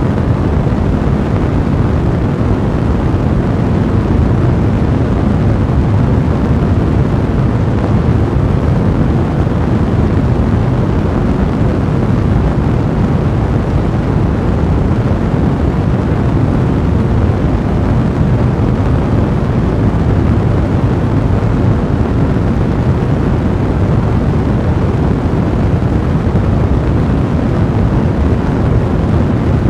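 Blazing fire burning with a steady, deep, rumbling rush of noise, even throughout with no single crackles standing out.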